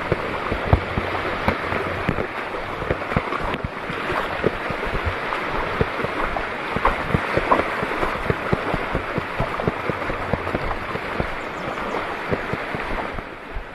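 Water sloshing and splashing with many small irregular splashes, and wind buffeting the microphone.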